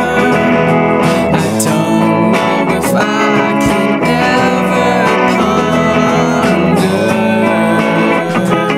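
Music: a guitar-led song, steady and full.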